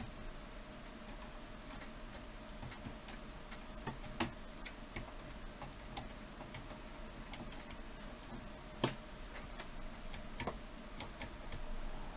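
Irregular small clicks and clacks of plastic and metal parts being fitted by hand onto a VCR tape-deck mechanism, the sharpest about four seconds and nine seconds in, over a faint steady hum.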